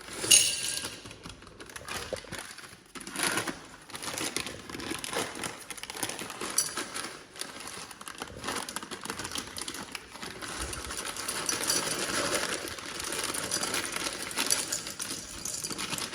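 Nuts and dried fruit being poured into glass storage bottles, with many small pieces rattling and clicking against the glass.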